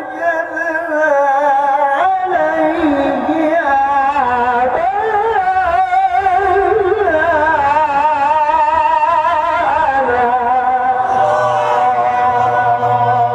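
A man recites the Quran in the melodic mujawwad style. He sings 'wajadna 'alayhi' and then draws the phrase out into a long, ornamented melisma whose held notes waver quickly in pitch.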